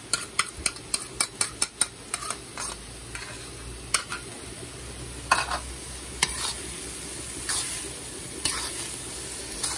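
A spoon scrapes and taps sauce out of a ceramic bowl into a hot wok in quick clicks for the first couple of seconds. Then a spatula stirs and scrapes vegetables around the wok now and then, over a steady sizzle of frying.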